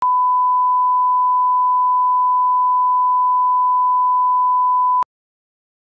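A 1 kHz line-up test tone, the steady sine beep played with colour bars, holding one pitch for about five seconds and cutting off abruptly.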